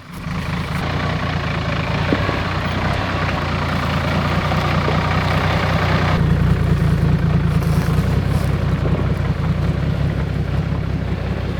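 Off-road 4WD engine running steadily at low revs, a deep, even drone. A hissing rush over it drops away suddenly about six seconds in.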